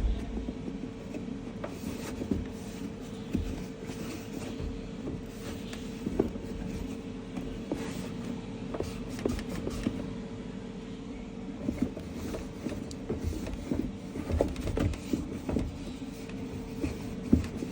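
Washing machine running: a steady mechanical hum with irregular knocks and clunks, which come more often later on.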